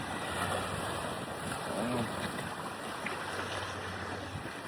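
Steady rushing outdoor noise, wind on the microphone, with a low steady hum underneath that stops near the end.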